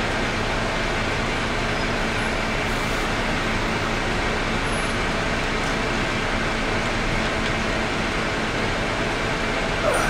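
Steady background noise of a city street with traffic. Near the end there is a brief rustle as the camera is picked up and handled.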